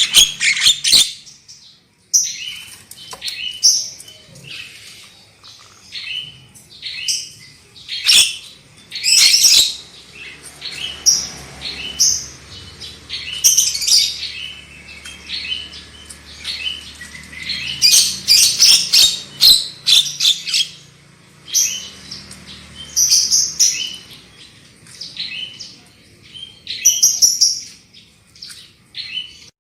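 Javan myna (jalak kebo) calling: a run of short, high, harsh notes and chatters in quick clusters, separated by short pauses.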